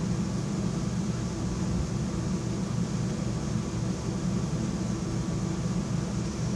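Steady low hum with a faint even hiss of room air conditioning running, unchanging throughout.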